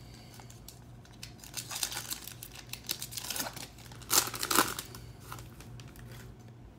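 Foil trading-card pack wrapper torn open and crinkled by hand, in a run of crackling rips with the loudest tearing about four seconds in.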